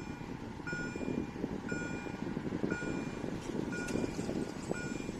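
Electronic warning beeper of a railway level crossing, sounding a short tone about once a second, five times, while the barrier arms come down: the warning that a train is approaching. A steady low background noise runs underneath.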